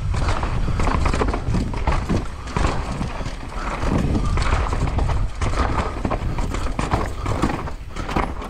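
Downhill mountain bike ridden fast over rough trail: a steady clatter of knocks and rattles from the bike as it hits bumps, over a low rumble of tyres and rushing air.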